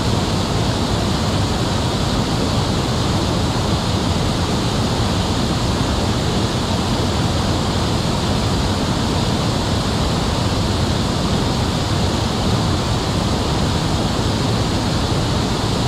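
Loud, steady rush of water spilling over a low dam and falling into the pool below.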